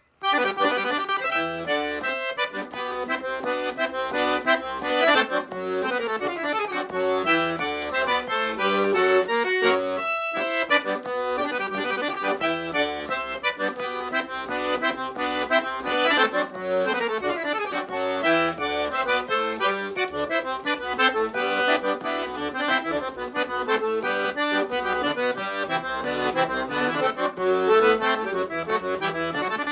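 Recorded instrumental music led by an accordion playing a traditional tune, with a brief break about ten seconds in.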